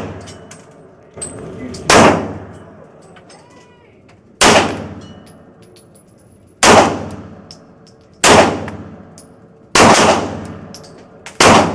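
9mm semi-automatic pistol fired slowly, about six shots one and a half to two seconds apart, each followed by a decaying echo.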